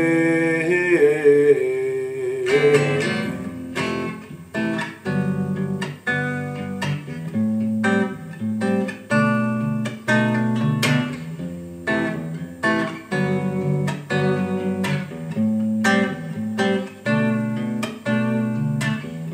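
Electric guitar (a Squier offset-body model) played clean through an amp, picking a steady, repeating pattern of ringing notes. A held sung note wavers and fades out in the first two seconds.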